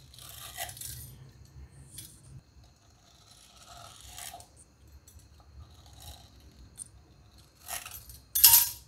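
Soft rubbing and scraping of a metal cutter and hands on stiff dough against a wooden rolling board, in several short bouts. A louder, sharper scrape comes near the end.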